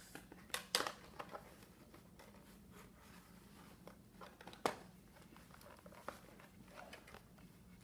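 Faint rustling of cardboard and plastic packaging with a few short sharp clicks, as the twist ties holding a toy blaster in its box are being cut.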